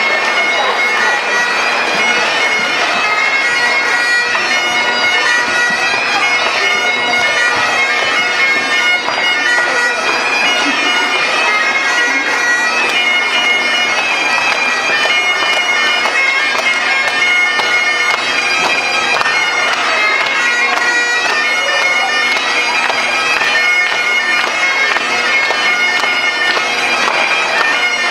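Great Highland bagpipes playing a dance tune: the drones hold steady tones under the chanter's melody.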